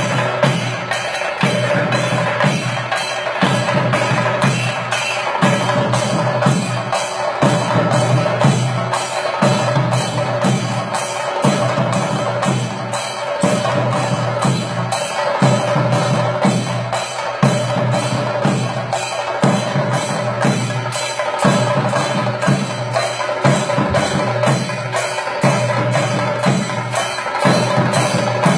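Ensemble of chenda-style cylindrical drums beaten with sticks, playing a fast, even, unbroken rhythm, with a steady held tone underneath.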